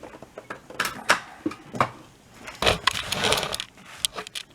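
Handling noise from a laptop power adapter and its cable: a series of irregular clicks and knocks, with a brief rustle about three seconds in.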